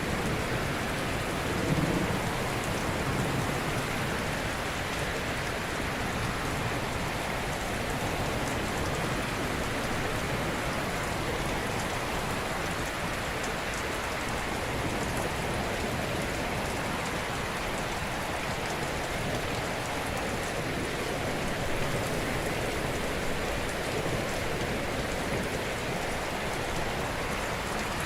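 Ocean surf: a steady, even wash of breaking waves, with a brief low rumble about two seconds in.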